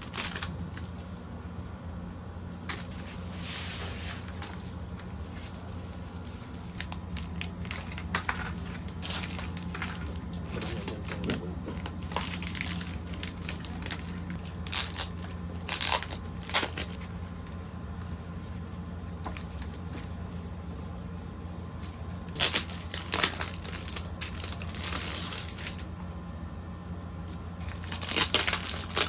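Packaging being handled: irregular crinkling and rustling in short bursts, loudest in a few clusters, over a steady low electrical hum.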